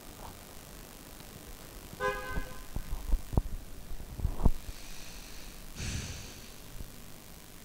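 Two short horn-like toots, one about two seconds in and a higher one near six seconds, with a few sharp knocks between them.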